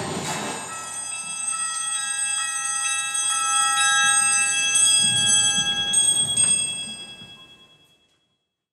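Bell-like ringing tones at the end of a live rock set: several notes enter one after another and sustain together, then fade out to silence near the end.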